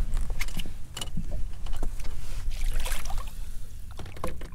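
Water lapping against a fiberglass boat hull over a steady low rumble, with scattered short knocks and clicks.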